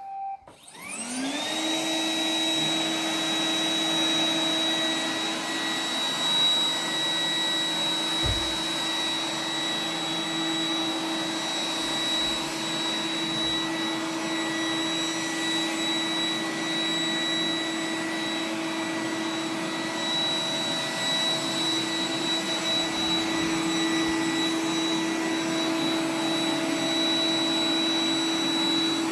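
Roomba 980 robot vacuum's motors spinning up over the first second, rising in pitch, then running with a steady whine as it vacuums.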